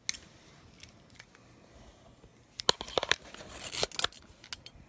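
Handling noise of an iPhone being fitted into a small plastic tripod phone holder: scattered plastic clicks and brief scraping, busiest from about two and a half to four seconds in.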